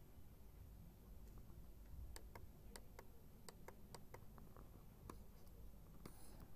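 Near silence: faint room tone with about a dozen small, sharp clicks at irregular intervals, most of them in the middle.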